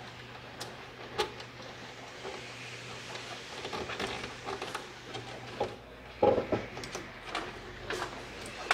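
Scattered clicks and rustles of hands handling power cables and plastic connectors on a motherboard in an open desktop PC case, with a louder cluster of knocks about six seconds in.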